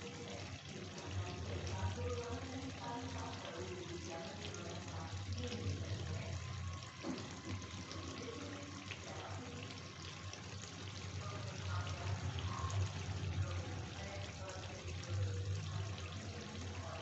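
Chicken curry gravy bubbling and sizzling in a kadai on the stove: a continuous crackle and spluttering, with a low hum underneath.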